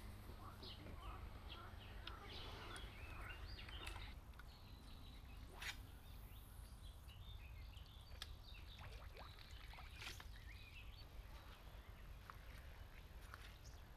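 Faint outdoor ambience: scattered bird chirps over a steady low rumble, with a couple of sharp ticks about six and ten seconds in.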